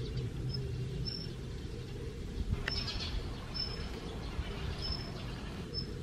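Daurian redstart giving short, thin, high whistled calls, about one a second, over a steady low background rumble.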